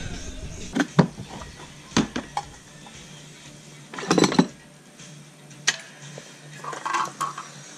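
Metal clanks and knocks as steel jack stands and a floor jack are handled and set down on a concrete floor under a riding mower. There are several separate knocks, with the loudest cluster about four seconds in.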